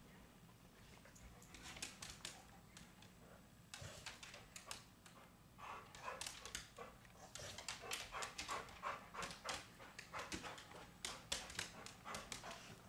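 Chow Chow panting and whimpering in excitement, a quick run of short breaths that thickens about six seconds in.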